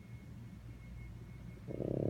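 French bulldog snoring: soft, low breathing rumble, then a loud snore starts near the end.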